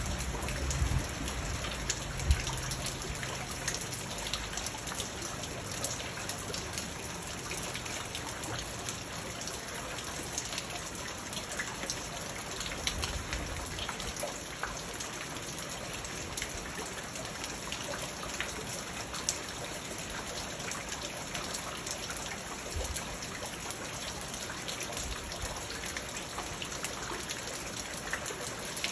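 Steady rain falling on a garden pond and wet stones: a dense, even patter of drops splashing on water and hard surfaces, with a few louder single drips in the first seconds.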